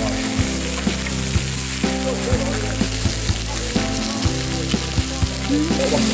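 Slices of pork belly sizzling on a hot griddle pan, under background music with a steady beat of about two pulses a second.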